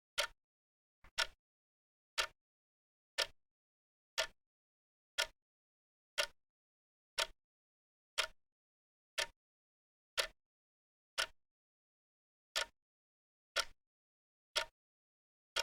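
Wristwatch ticking: one sharp tick about once a second, with silence between ticks.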